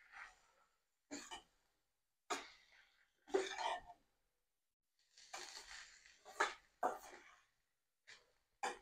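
Perforated steel spatula scraping and tossing fried rice in a stainless steel wok, in short irregular strokes about a second apart.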